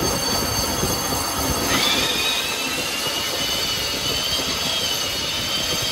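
Metal lathe turning a worn car brake disc to resurface it, running with a steady metal-cutting noise. About two seconds in, a high squeal starts as the cutting tool works the disc face and holds to the end.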